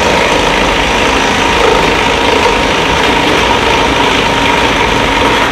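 Pneumatic impact wrench running continuously on the track hub's lock nut, loosening it after the cap is off. It stops abruptly at the end, its pitch falling briefly as it spins down.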